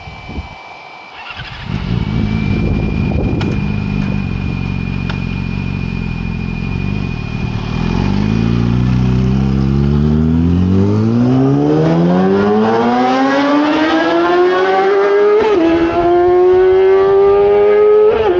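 2009 Yamaha R6's inline-four engine with a full Yoshimura exhaust: it comes in loudly about a second in and runs at a steady idle. It is then revved slowly and smoothly up over about eight seconds and held at high revs near the end.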